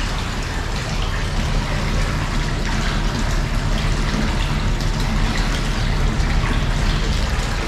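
Water running steadily into a bath, with a steady low hum underneath.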